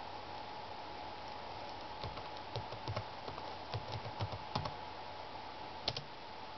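Typing on a computer keyboard: a quick run of key presses spelling out a word, then a louder pair of clicks near the end.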